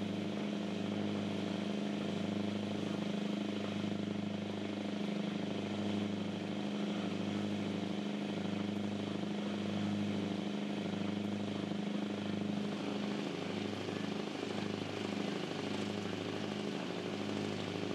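A cruise boat's engine running, heard from on board: a steady low hum that pulses regularly, about once a second.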